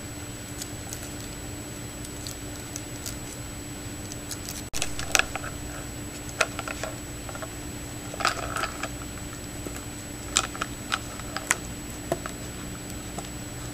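A raccoon handling a hanging plastic hummingbird feeder: irregular light clicks, taps and scrapes, busiest in the second half. Under them run a steady low hum and a thin high whine.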